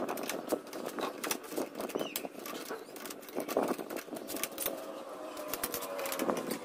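Irregular metallic clicks and clinks of a socket wrench being worked on the motorcycle's rear shock and swing-arm bolts to loosen them.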